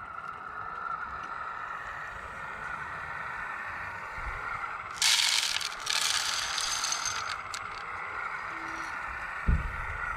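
Radio-controlled scale CAT wheel loader working a load of gravel ballast: its hydraulic drive whines steadily, and loose gravel scrapes and rattles loudly for about two seconds midway. A single dull thump comes near the end.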